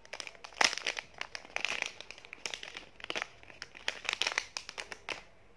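Clear plastic wrapper crinkling as a ballpoint pen is pulled out of it, in a run of irregular crackles that stops about five seconds in.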